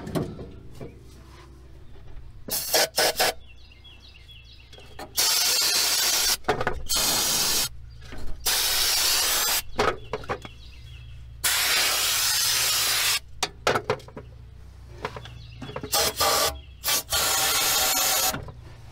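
Aerosol can of ether starting fluid sprayed in several hissing bursts, some a second or more long, soaking the truck's air cleaner element. Short rubbing and clunking of the air cleaner being handled come between the bursts.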